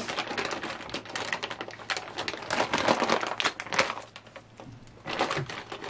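Clear plastic packaging bag crinkling and rustling in the hands as it is opened and handled, with a short lull about four seconds in before the crinkling picks up again.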